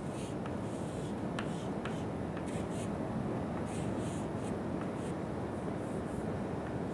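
Chalk scratching on a chalkboard in short strokes, with a few sharp taps, as a diagram is drawn, over a steady low room hum.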